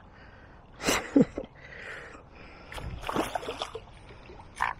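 Water splashing and running off a landing net as it is lifted out of the river with a pike in it, then scuffing and knocking as the net is set down on the grassy bank.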